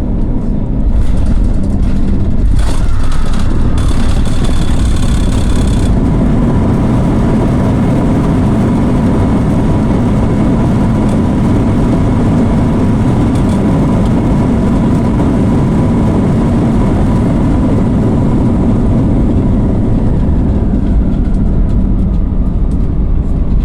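Cabin noise aboard an Airbus A321 with CFM56 engines: a steady low rumble with a faint whine. A louder hiss joins about a second in and cuts off sharply about six seconds in.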